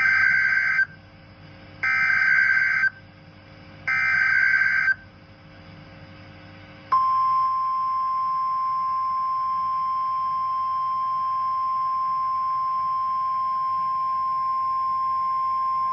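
Emergency Alert System tones signalling a tornado warning. First come three short, harsh, buzzy SAME header data bursts about a second apart. Then, about seven seconds in, the long steady single-pitch alert tone begins and holds for about nine seconds.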